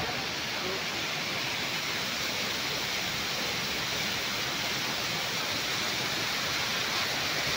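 Steady rushing of a waterfall, water cascading down a rock face and splashing onto the stones below.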